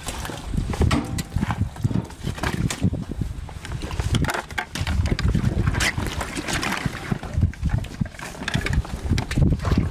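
Wind buffeting the microphone in an uneven, gusty rumble, with scraping and tearing sounds as a knife cuts and hands pull the hide off a hanging beef carcass.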